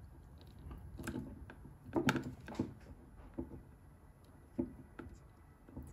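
Light clicks and knocks of plastic and metal parts handled inside a PC case as a hard drive's power connector is fitted. About seven short taps are spread out, the loudest a couple about two seconds in.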